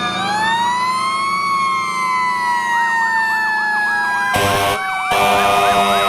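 Fire engine sirens: one long slow wail rising and falling, joined about halfway by a second siren yelping rapidly up and down, with two short horn blasts near the end.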